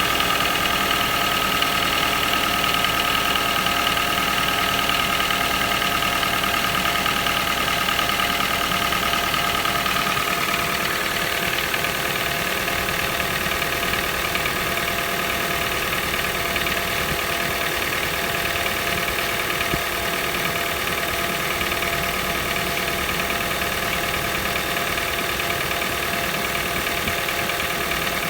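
Toyota 1NZ-FE four-cylinder petrol engine idling cold with a knock, which the owner says comes every morning and goes away after a few minutes of warming up. A steady high tone in the engine sound eases off about ten seconds in.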